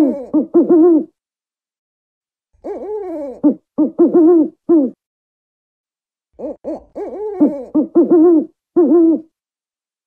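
African wood-owl hooting: the end of one quick series of hoots, then two more series after short silent gaps, each hoot rising and falling in pitch.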